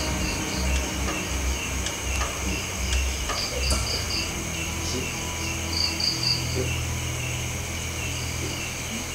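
Night insects: crickets chirping in steady pulses about three times a second over a constant high-pitched insect drone, with short bursts of a higher trill. A low pulsing rumble in the first few seconds gives way to a steady low hum.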